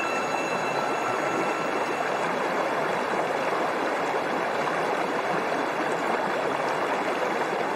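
Steady rushing of flowing river water, an even hiss with no distinct splashes. A few thin, steady high tones die away in the first two seconds.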